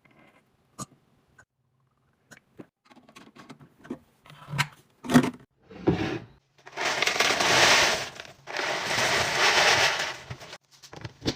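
Food packaging and containers being handled: scattered light clicks and taps, a few knocks, then two stretches of steady rustling noise about two seconds each.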